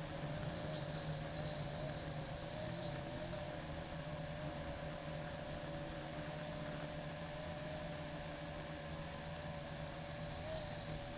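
LaTrax Alias quadcopter's small electric motors and propellers whining steadily in flight, the pitch wavering slightly. One of the motors is a newly fitted replacement for the right front motor.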